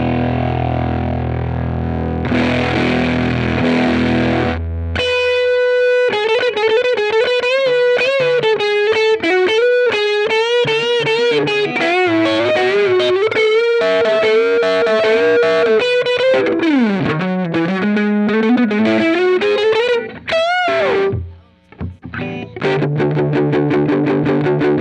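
Distorted electric guitar played through a Ground Control Serpens optical boost/compressor pedal. It starts with ringing chords, switches to a single-note lead with string bends and vibrato about six seconds in, drops out briefly near twenty-one seconds, and returns to chords near the end.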